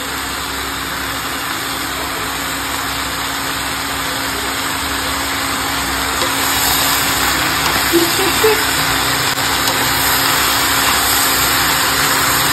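Chopped sponge gourd and chana dal sizzling in hot oil in a kadhai, a steady hiss over a low steady hum. About halfway through a spatula starts stirring, the sizzle grows louder, and the spatula knocks against the pan a couple of times.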